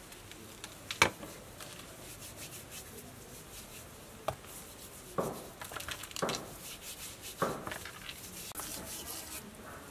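Hands rubbing and squeezing raw plucked quail with salt in a plastic bowl: faint wet rubbing and rustling, with a sharp knock about a second in and a few softer knocks later on.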